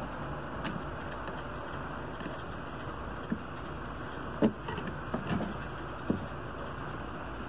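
A steady background hiss with four light taps and clicks spread through the middle, the loudest about four and a half seconds in: small tools being handled while soldering wires onto a RAM stick's pads.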